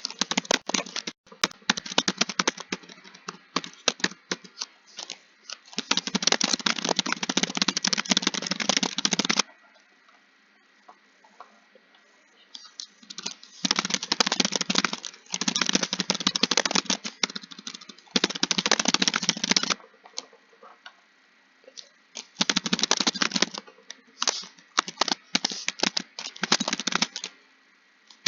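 Computer keyboard being typed on quickly, in fast runs of keystrokes lasting a few seconds each, broken by pauses of one to three seconds.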